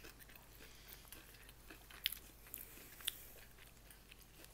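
Faint chewing of food, with a few short, sharp crunchy clicks.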